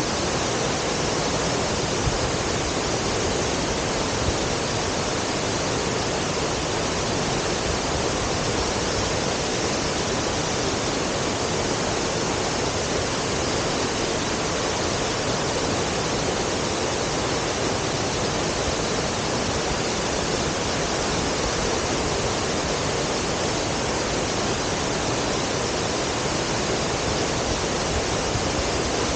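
Tall waterfall crashing down into its pool, a steady, loud rush of falling water.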